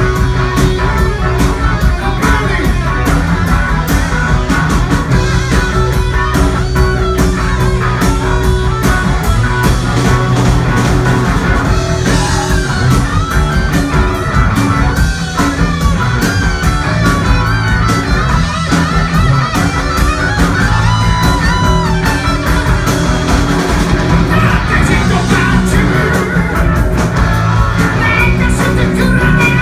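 Live rock band playing loud through a club PA: distorted electric guitar carrying an instrumental stretch over bass guitar and drums, heard from the audience. The vocals come back in near the end.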